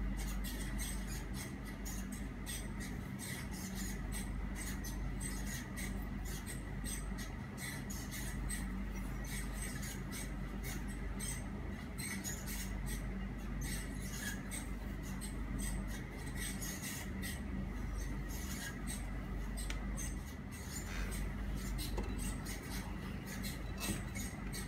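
Hands handling a rusty steel cleaver blade: fingers rubbing and light clicks and scrapes against the metal, irregular throughout, over a steady low hum.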